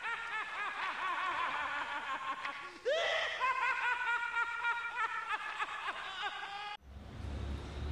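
Several high-pitched voices laughing together in rapid, overlapping bursts, with a fresh outburst about three seconds in. The laughter cuts off abruptly near the end, leaving a low, steady rumble.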